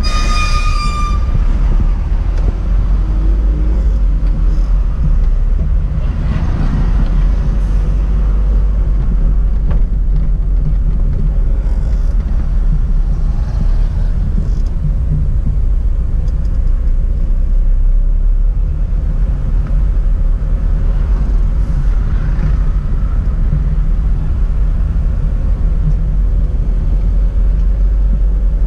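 Mitsubishi Lancer Box's 1.4-litre Orion 4G12 four-cylinder engine and road noise heard from inside the cabin while driving in town traffic: a steady, loud low rumble.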